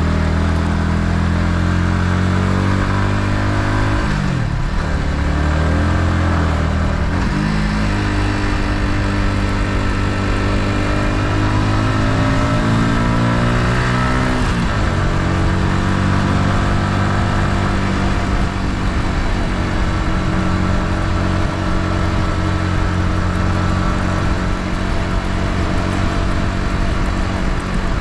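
Yamaha MT-15's single-cylinder engine with its stock exhaust, running under way. The engine note dips and climbs again about four seconds in, near seven seconds and around fourteen seconds, then holds steady.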